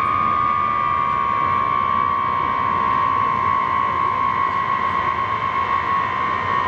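Ilyushin Il-76MD military transport taxiing, its four D-30KP turbofan engines giving a loud, steady high whine that sinks slightly in pitch, over a rushing engine noise.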